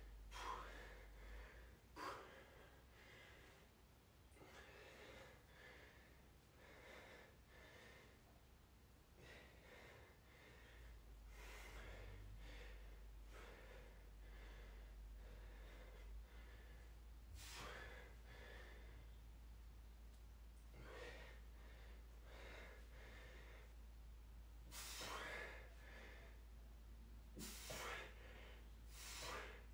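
Faint, irregular breaths of a man straining through resistance-band curls, a breath every two to four seconds, over a steady low hum.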